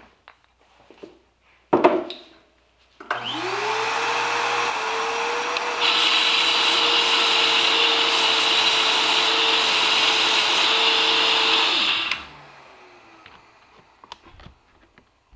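A single knock, then a belt grinder starts and its motor whine rises to a steady pitch. A few seconds later a piece of fossilized mammoth tusk is pressed flat against the running belt, adding a loud grinding hiss as the mating face is surfaced for gluing. Near the end the grinder is switched off and its whine falls away as it winds down.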